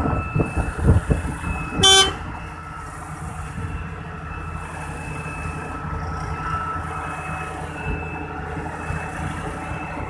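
Diesel engine of an asphalt paver running steadily, louder with rumbling and knocks for the first two seconds, with a single short horn toot about two seconds in.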